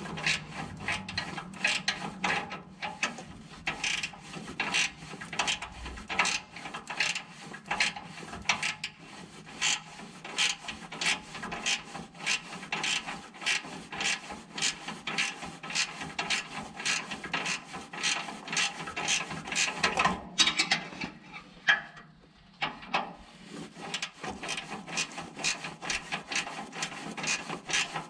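Hand ratchet wrench being cranked back and forth on a bolt, a quick even run of clicking strokes about four a second, with a brief pause about three quarters of the way through.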